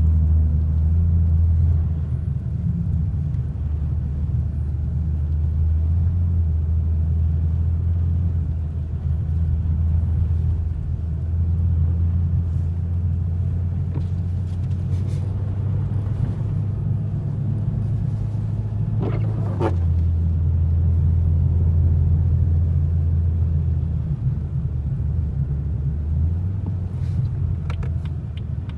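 Car driving along a snow-covered road, heard inside the cabin: a steady low drone of engine and tyres that shifts slightly in pitch a few times, with a few faint clicks.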